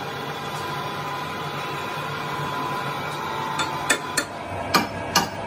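Lathe chuck key working the chuck jaws: about five sharp metal clicks and knocks over the last two seconds. Under them, a steady hum of workshop machinery.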